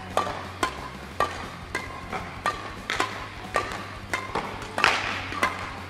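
Badminton shuttlecock struck back and forth by two rackets in a fast rally, about two hits a second. Each hit is a sharp crack with a short ringing ping.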